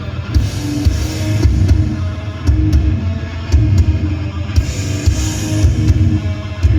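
Loud live metallic hardcore band playing: heavily distorted guitars and bass over pounding drums, with cymbal crashes washing in twice. The sound is a phone recording from inside the crowd.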